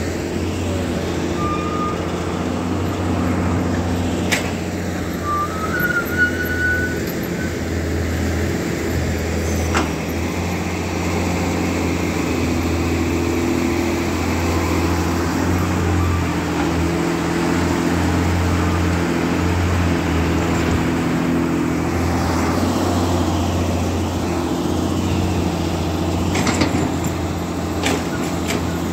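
Tata Hitachi EX200 hydraulic excavator's diesel engine running steadily under load while it digs, with a few sharp clicks or knocks from the working machine.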